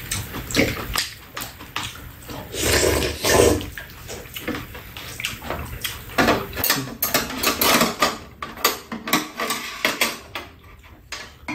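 Close-up eating sounds: wet chewing and slurping of rice and soup, with many short clicks of spoons and chopsticks against the bowls. A longer slurp comes a few seconds in.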